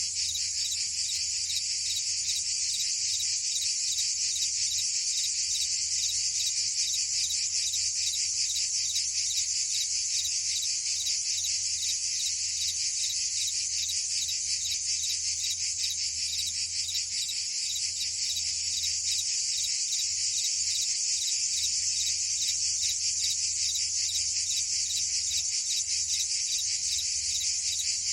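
Steady chorus of cicadas and crickets: a dense, high-pitched buzzing trill with a fast, even pulse that holds unbroken.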